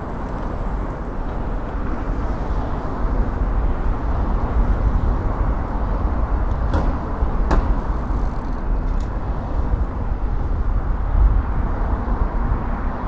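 Steady rush of wind and city traffic heard from a moving bicycle, with a heavy low rumble throughout. Two short clicks about seven seconds in.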